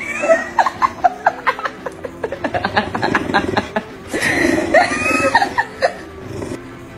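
English bulldog chomping a red rubber squeaky toy shaped like grinning lips and teeth, giving a rapid run of short squeaks with a brief break about four seconds in.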